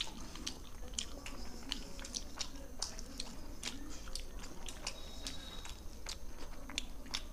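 Close-miked chewing of roti with palak paneer and syrupy rasgulla: wet mouth clicks and smacks, irregular, a few a second.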